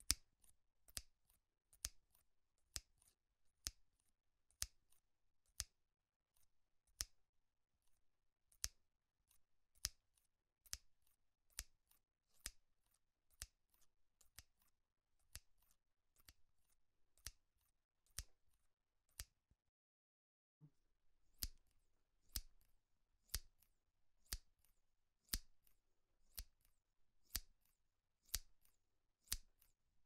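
Scissors snipping shut over and over, a sharp click about once a second, with a pause of a second or two about two-thirds of the way through.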